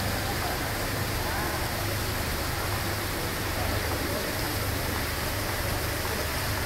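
Steady rushing room noise of a large, echoing atrium, with a constant low hum and faint, indistinct voices in the background.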